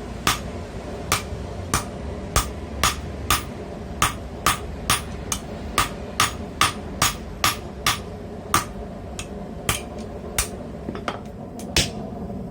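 Hand hammer striking hot steel on an anvil, drawing out and thinning the front end of a tong jaw. The blows come in a steady rhythm of about two a second with brief pauses, over a steady background drone.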